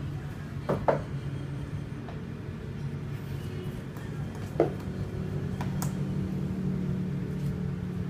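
A few sharp clicks and taps of small repair tools and parts against a phone, the loudest about a second in and again about four and a half seconds in, over a steady low hum.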